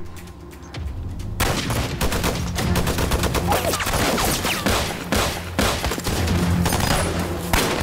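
A dense fusillade of film-soundtrack rifle fire: shots crowd closely together, starting about a second and a half in.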